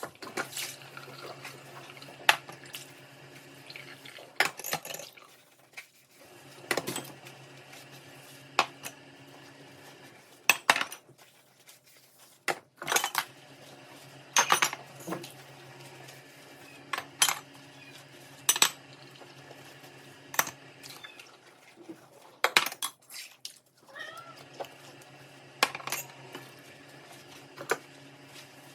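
Dishes and cutlery clinking and knocking as kitchenware is handled and put away, in scattered sharp strikes over a steady low hum.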